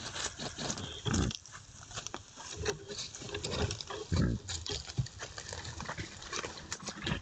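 Wild boar grunting and snuffling close by, with rustling and crackling of twigs and leaf litter as it roots and moves through the undergrowth; two louder low grunts come about a second in and just after four seconds.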